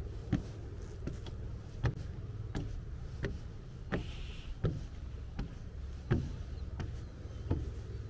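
Footsteps of a person walking at an even pace, about one step every three quarters of a second, over a steady low rumble.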